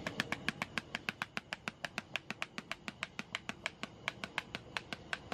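Seasoning shaker shaken rapidly by hand, a steady run of sharp clicks at about seven or eight a second.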